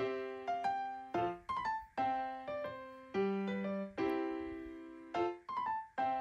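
Background music: a gentle piano-like keyboard tune of struck, fading notes and chords, with a quick run of notes about a second in and another near the end.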